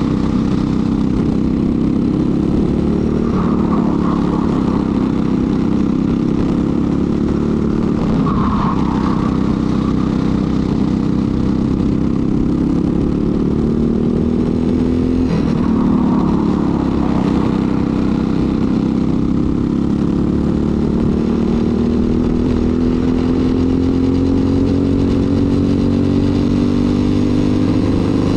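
Briggs & Stratton LO206 single-cylinder four-stroke kart engine running hard under racing load. Its pitch dips briefly twice, then climbs steadily over a long stretch near the end.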